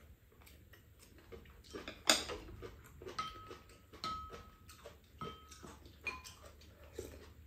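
Metal spoon and chopsticks clinking and scraping against ceramic bowls while two people eat, with chewing and lip-smacking between. There is a sharp clack about two seconds in, then several short ringing clinks.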